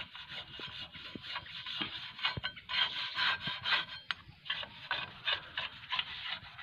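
A small brush scrubbing dust and grime off a Bajaj RE auto-rickshaw's exposed drum brake assembly (shoes, hub and backing plate), bristles rasping on metal in repeated quick strokes.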